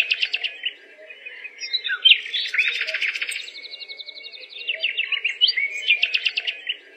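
Songbirds chirping and trilling in quick runs of high notes, with a busier burst of calls about three seconds in.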